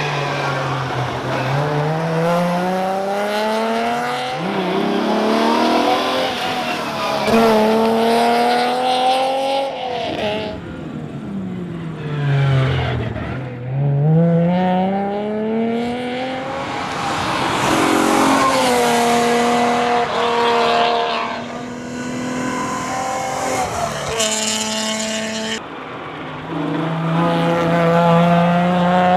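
Alfa Romeo GTV6's V6 engine under hard rally driving: the revs climb and drop back again and again as it changes gear, fall low around the middle, then build once more.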